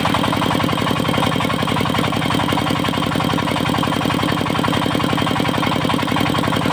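Engine of a portable circular-saw mill running steadily with a fast, even pulse.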